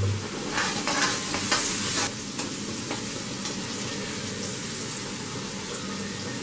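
Chopped carrots and sliced garlic sizzling in hot oil in a kadai, stirred during the first two seconds, then a steady sizzle.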